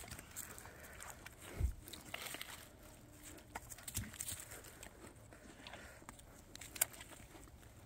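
Dogs moving about and nosing through dry leaves on grass: scattered light rustles and crunches, with a dull thump about a second and a half in and a sharp click near the end.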